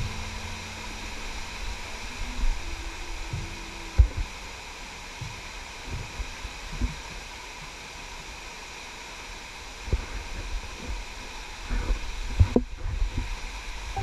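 Waterfall cascading over rock: a steady rush of water with scattered knocks from the camera being handled. The sharpest knocks come about 4 seconds in and around 12 seconds in.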